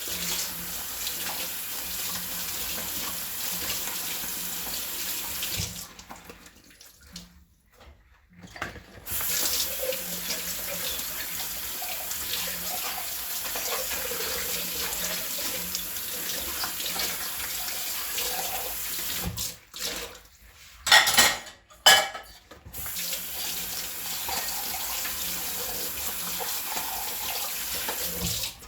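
Kitchen tap running into a sink during hand dish washing, the water shut off and back on twice. A few sharp clatters of dishes knock together about 21 seconds in, louder than the water.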